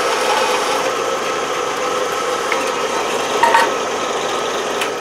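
Band saw running steadily as its blade cuts through a thick block of HDPE plastic, with a brief louder spot about three and a half seconds in.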